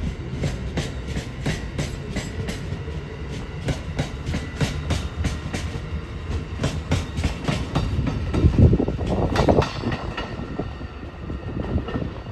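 Amtrak passenger train with an ex-Metroliner cab car rolling past, its wheels clicking over rail joints several times a second above a steady low rumble. A louder swell of rumble comes about two thirds of the way in, and the clicking thins out near the end.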